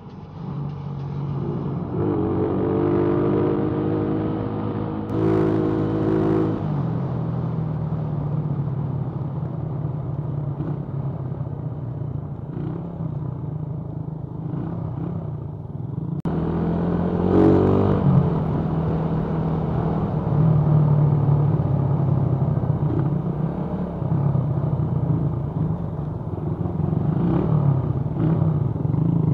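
Motorcycle engine running while riding, its pitch shifting with the throttle; it revs up and back down about halfway through.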